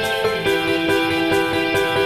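Instrumental background music: sustained chords over a light steady beat, with a change of chord about half a second in.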